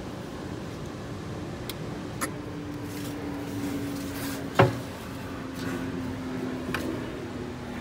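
Light clicks from handling a pool equipment control panel and its metal door, with one sharp loud click a little past the middle, over a steady low hum.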